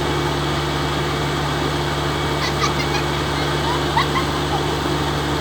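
Engine of a rice-harvesting machine running steadily: a constant drone with a low hum. A few short high chirps sound over it around the middle.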